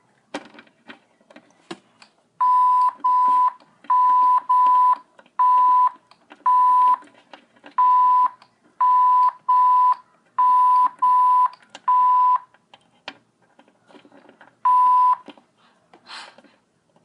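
Censor bleeps: a steady beep tone sounding about thirteen times, each about half a second, several in quick pairs, through the middle of the stretch and once more near the end, blanking out a string of swear words.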